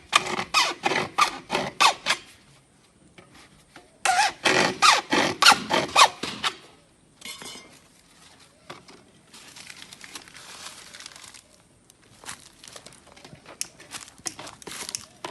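Rapid back-and-forth rasping strokes of a hand tool on plastic plumbing pipe, about five strokes a second, in two runs of roughly two seconds each. After the second run come quieter scrapes and a faint hiss.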